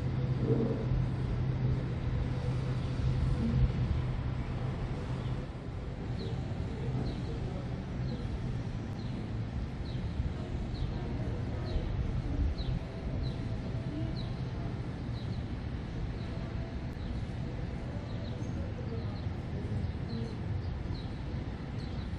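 Waterfront city ambience: a steady low engine hum that eases off about five seconds in, under a general wash of urban noise. After that a short, high, falling chirp repeats every half-second to a second.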